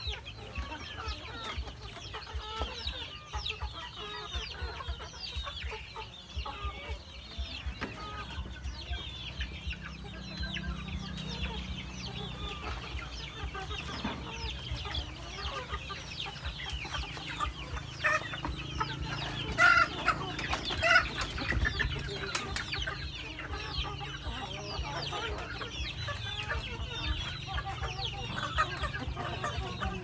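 A flock of chickens, hens and roosters, clucking and calling continuously, with louder calls about two-thirds of the way through. A low steady hum sits underneath from about a quarter of the way in.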